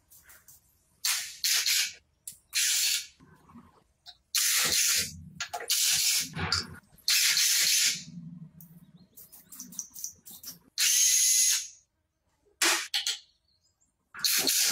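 Repeated short bursts of hissing, each under a second and cut off sharply, about seven of them with quiet gaps between.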